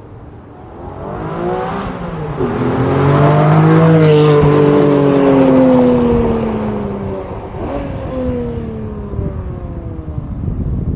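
Porsche 718 Spyder's 4.0-litre flat-six accelerating hard: the exhaust note climbs in pitch, dips briefly at a shift about two seconds in, climbs again to its loudest around the middle, then falls in pitch and fades as the car moves away.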